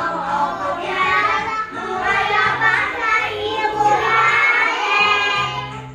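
A group of young children singing together over instrumental accompaniment. The singing stops near the end, leaving the accompaniment playing.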